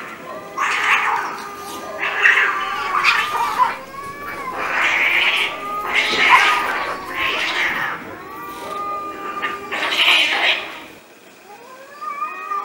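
Cats fighting: long, wavering yowls broken by harsh screeching outbursts about every second. It dies down briefly near the end before the yowling starts again.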